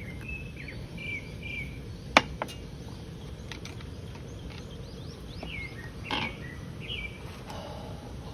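Small birds chirping in short, gliding calls over a steady low background noise, with two sharp clicks about two seconds in and a brief knock about six seconds in.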